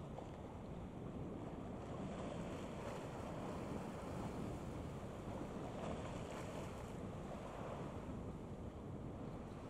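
Steady outdoor noise of wind on the microphone and water washing, with no distinct engine tone or event standing out.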